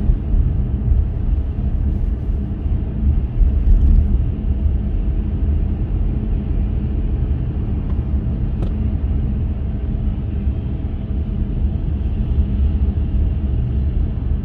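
Car driving along a city street: a steady low rumble of road and engine noise.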